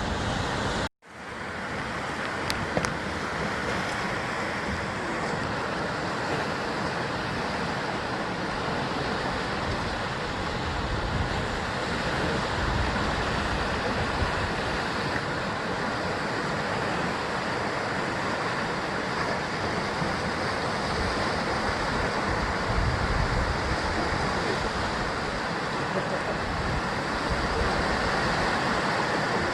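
Sea surf washing steadily against the basalt column cliffs of the Jusangjeolli coast, with some wind rumble on the microphone. The sound drops out for a split second about a second in, then returns.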